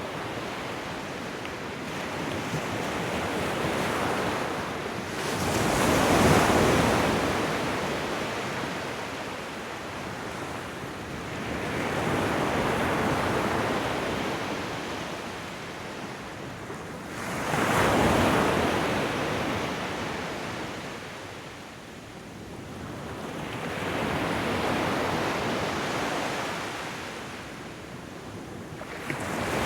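Ocean surf: waves breaking in slow surges every five to seven seconds, each swelling and fading away. The two biggest waves break about six seconds in and again about eighteen seconds in.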